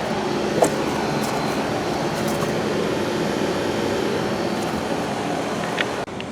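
Outdoor heat pump condensing units running: a steady hum of fan and compressor, with a sudden drop in level near the end.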